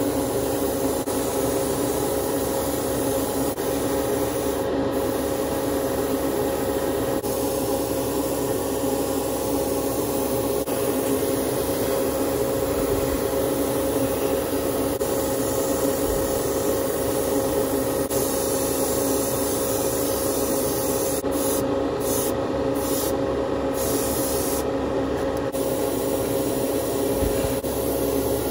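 Gravity-feed airbrush spraying paint onto plastic model car parts in a hobby spray booth: a steady hiss of air over an even motor hum.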